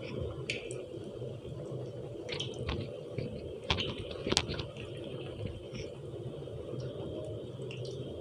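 Hot oil sizzling and bubbling around a potato naan deep-frying in a pan, with scattered crackles and pops and a cluster of louder pops about four seconds in. The naan's second side is frying.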